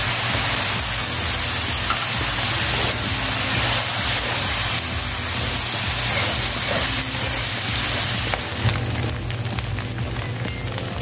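Diced chicken gizzards and liver sizzling loudly in a hot oiled pan as soy sauce and vinegar hit it. About eight seconds in, the steady sizzle thins into a crackle of separate pops.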